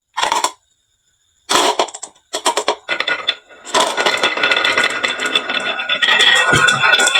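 Many marbles clattering and rolling down a wooden marble-run slope, a dense rapid rattle of clicks with some ringing. It cuts out abruptly for about a second near the start, then comes back and keeps building.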